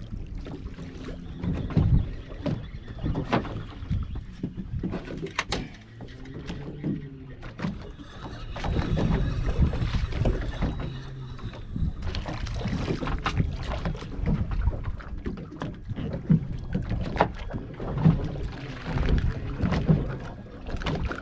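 Sounds aboard a small fishing boat on the water: a steady low rumble of wind and water, with many irregular knocks and clicks from handling on deck.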